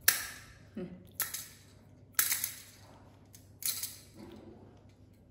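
Handheld plastic baby rattle toy shaken four times in short bursts, each a bright clattering rattle that dies away within about half a second.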